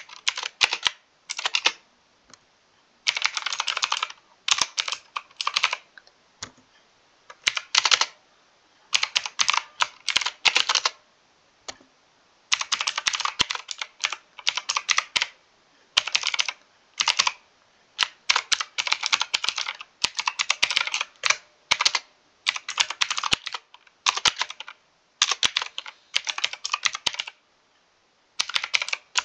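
Mechanical keyboard typing in quick runs of keystrokes, broken by short pauses between runs.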